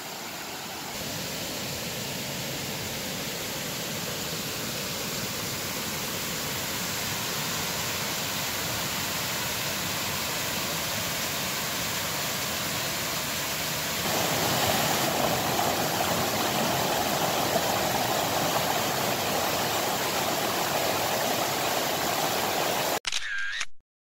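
Small waterfall rushing over rock ledges: a steady, even rush of water that gets louder about two-thirds of the way through, then cuts off just before the end.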